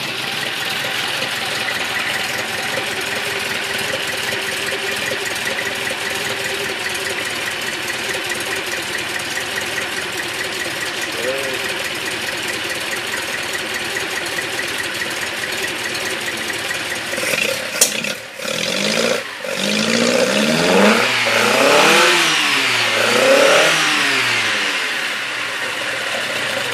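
Datsun 160J Violet's freshly rebuilt four-cylinder engine with twin side-draft carburettors running steadily on its first start-up. About eighteen seconds in it dips briefly twice, then it is revved up and down several times before settling back to a steady idle.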